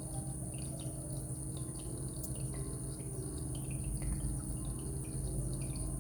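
Anti-gravity water-drop humidifier running: water dripping in many small, irregular drops over a steady low hum.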